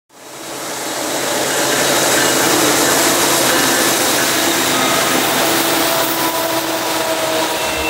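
Freight train's diesel locomotives and cars passing close at speed: a steady, loud rush of engine, wheel and wind noise that fades in over the first second.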